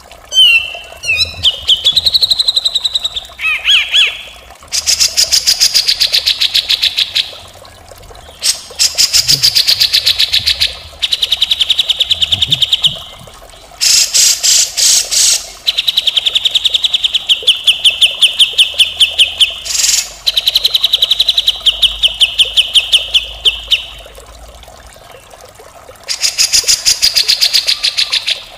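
Cucak jenggot (brown-cheeked bulbul) calling in repeated runs of fast, rattling pulsed notes a couple of seconds long, with short pauses between runs. Some runs are harsh and coarse: the 'mbeset kasar' call.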